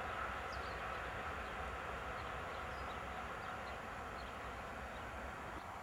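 Distant freight train of container wagons rolling away along the line, a steady rumble and wheel-on-rail noise slowly fading. Faint bird chirps sound above it.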